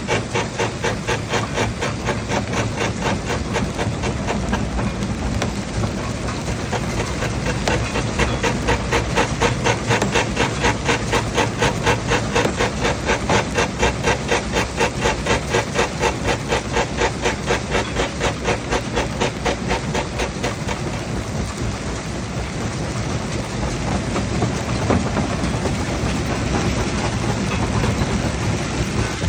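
Heavy machinery running with a steady, rhythmic chugging pulse of about three beats a second over a hissing, grinding noise.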